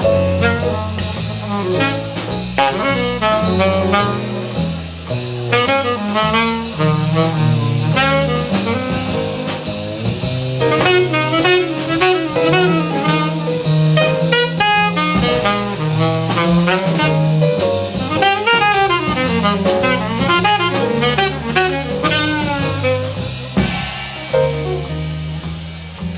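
Jazz played back on Piega Line Source hi-fi loudspeakers: a saxophone melody over a walking bass line and drum kit.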